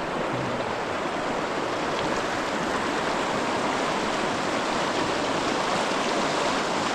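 Moving river water rushing steadily around a kayak in the current, slowly growing a little louder.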